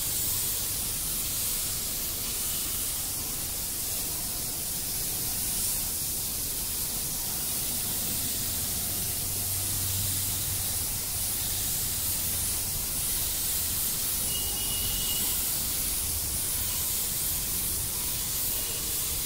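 Compressed-air gravity-feed spray gun hissing steadily while spraying primer onto a car's rear bumper.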